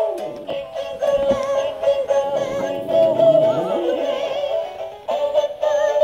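A Christmas carol with a synthesized singing voice, played by animated singing Christmas plush toys. It dips briefly about five seconds in and then starts again.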